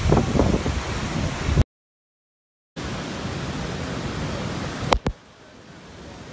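Wind buffeting the microphone over crashing surf, cut off abruptly; after a second of silence, the steady rush of storm floodwater pouring through the open spillway gates of a concrete dam, with a couple of sharp clicks about five seconds in, after which the rush is quieter.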